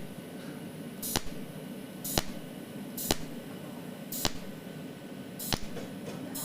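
Cold welding machine spot-welding stainless steel sheet point by point: a sharp snap of each weld pulse about once a second, six in all, over a steady low machine hum.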